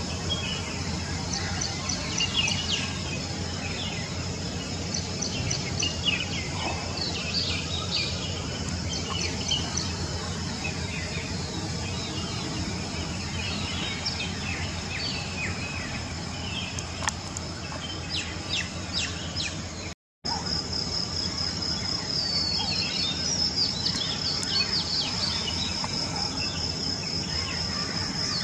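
Outdoor evening ambience: many small birds chirping over a steady high insect trill, which pulses evenly after a brief break in the sound about twenty seconds in.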